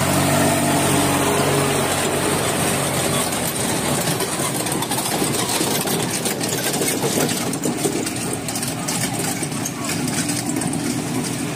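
Small compact tractor's engine running steadily close by as it pulls a train of plastic-drum carriages, its hum losing its clear pitch after the first few seconds as the tractor moves off, with people's voices around it.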